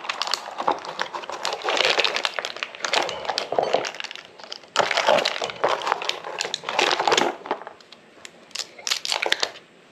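Clear plastic parts bag crinkling and crackling as hands rummage through it for new bushings, in irregular bursts that thin out to a few small clicks near the end.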